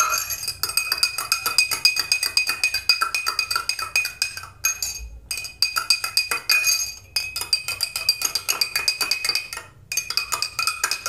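Metal spoon stirring soap into water in a tall drinking glass, clinking rapidly against the glass so that it rings, with a few short pauses.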